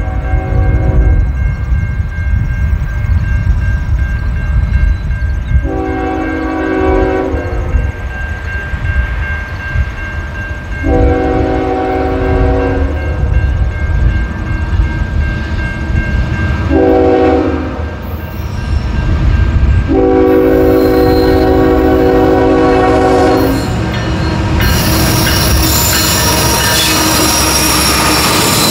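Canadian National GE diesel locomotives' multi-chime horn sounding long, long, short, long, the grade-crossing signal, over the rumble of the approaching grain train. Near the end the horn stops and a louder, steady rush of the passing train takes over.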